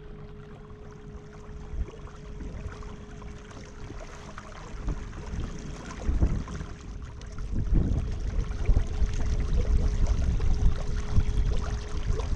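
Kayak gliding across calm river water, with a steady faint hum throughout and a low, uneven rumbling noise that grows louder from about halfway through.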